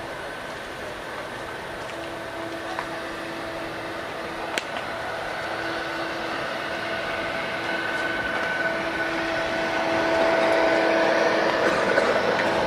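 Jet airliner engines running, a steady rushing noise with a few humming tones, growing steadily louder.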